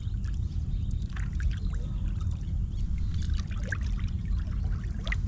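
Water splashing and trickling in short irregular strokes as a hooked carp is played near the surface, over a steady low rumble.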